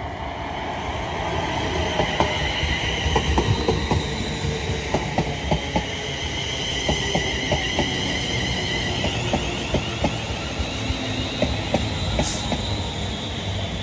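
Class 350 Desiro electric multiple unit running in, with its wheels clicking over the track beneath a steady rumble. Over this lies a high electric whine from its traction equipment, which shifts in pitch about nine seconds in.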